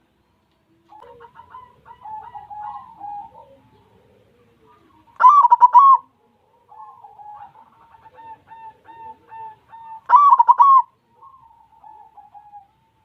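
White zebra dove cooing: two loud, rapid rolling phrases about five seconds apart, with quieter repeated coos in between.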